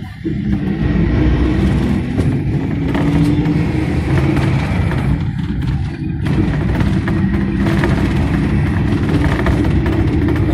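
Local bus engine running steadily as the bus drives along, with road noise, heard from inside the bus.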